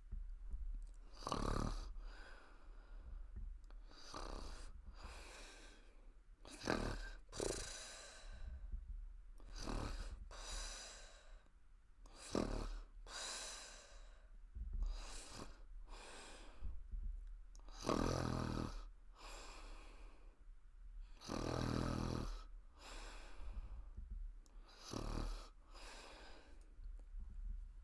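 Woman snoring in her sleep, open-mouthed throat snores: a string of snoring breaths every second or two, with the two loudest and deepest a little past the middle.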